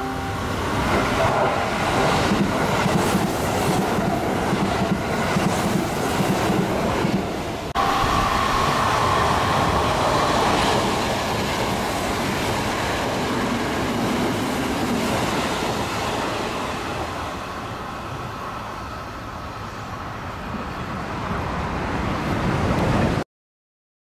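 Sanyo Electric Railway electric trains running past a station platform: wheels rumbling and clattering over the rail joints. After an abrupt change about eight seconds in, a train runs by with a steady whine. The noise fades and builds again before cutting off suddenly near the end.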